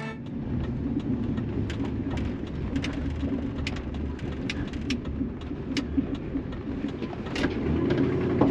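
Pickup truck driving, heard from inside the cab: a steady rumble of engine and tyres with scattered short clicks and rattles.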